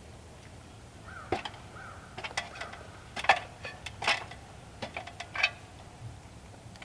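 A series of irregular knocks and clicks, loudest in the middle, with a faint high steady tone for about a second and a half near the start.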